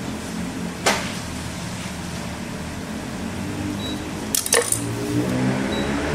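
Steady low background hum with one sharp click about a second in and a quick cluster of sharp clicks around four and a half seconds in.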